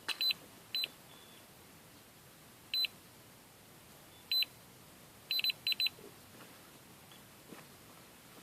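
Short, high electronic beeps, about nine of them at irregular intervals, with a quick run of four just past the middle.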